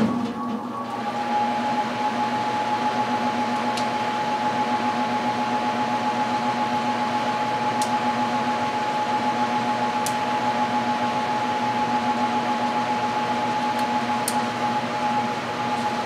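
Electric furnace running just after start-up: a steady whir with a constant hum. A few faint clicks come through it as the sequencers switch the heating elements on.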